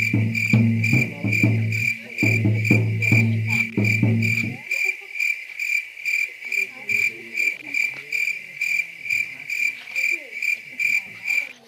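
Cricket chirping in a steady run of about three chirps a second. The high trill starts and cuts off abruptly. Low sustained music notes sound under it for the first four and a half seconds.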